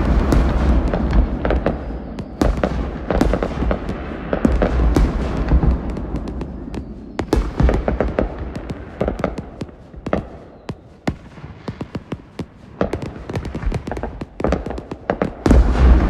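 Aerial fireworks going off: deep booms of bursting shells mixed with dense crackling and sharp pops. A heavy boom opens it, the bursts thin to scattered pops about two-thirds of the way through, and another heavy boom comes near the end.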